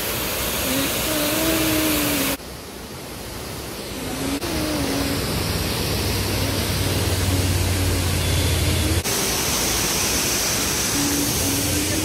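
Waterfall in heavy flow: a loud, steady rush of falling water, broken by abrupt cuts where the sound jumps in level. In the middle stretch a low steady hum runs under the rush.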